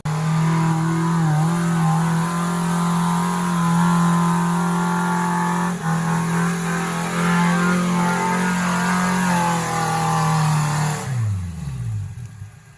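Off-road 4x4's engine held at high revs. About eleven seconds in, the revs drop away and the engine falls back toward idle.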